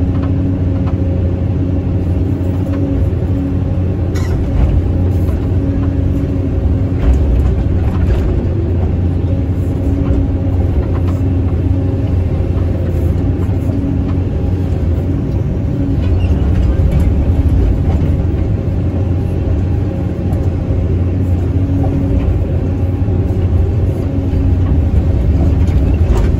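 Hydraulic excavator's diesel engine running steadily while the boom and bucket dig, heard from inside the operator's cab, with a few faint knocks.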